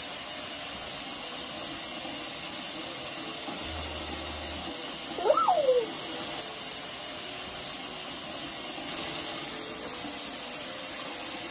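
Bathroom tap running steadily into a sink, a constant splashing hiss. About five seconds in a child gives a brief vocal sound that rises and falls in pitch.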